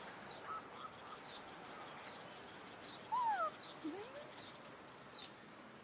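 Animal calls: short high chirps repeating every half second to a second, with a louder falling call about three seconds in and a short rising call just after it.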